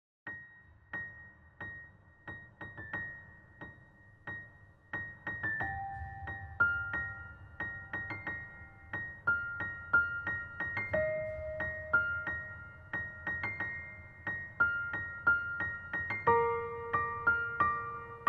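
Background music: a slow keyboard melody of single struck notes, sparse at first, becoming busier about five seconds in, with fuller chords near the end.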